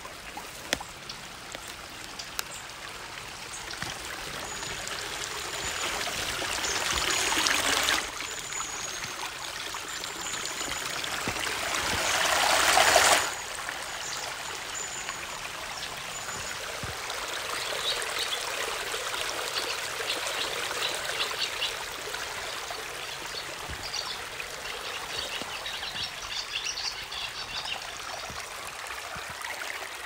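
Waterfall cascades spilling over rock into pools: a steady rush of water that twice swells louder and then drops off suddenly, about a third of the way in and again near the middle. Faint high chirps sound here and there over the water.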